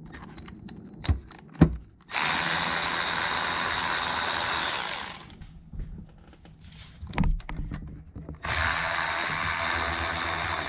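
Milwaukee cordless electric ratchet running in two steady bursts of about three seconds and two seconds, turning bolts on the engine, with a few clicks and knocks before the first burst.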